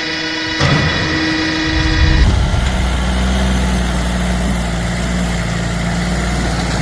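A long steady horn-like tone cuts off about two seconds in, giving way to a tractor's heavy engine running under load with a deep, steady rumble.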